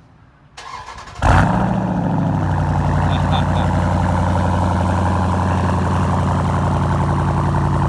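The 6.4-litre 392 HEMI V8 of a 2018 Dodge Durango SRT being remote-started: a brief crank about half a second in, then the engine catches with a loud flare of revs just over a second in and settles into a steady idle.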